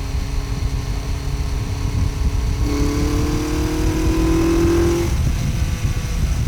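BMW K1100 RS motorcycle's inline four-cylinder engine running on the move over a low rumble. About three seconds in, its note rises steadily as the bike accelerates for about two seconds, then drops back as the throttle eases.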